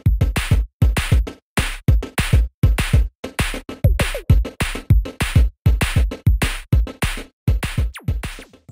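Electronic music with a hard drum-machine beat and deep bass hits, about two to three a second, cutting off abruptly near the end.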